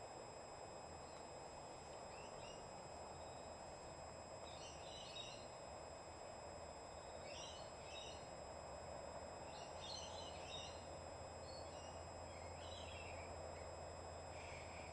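Faint outdoor ambience: small birds chirping in short twittering bursts every couple of seconds over a steady background hum.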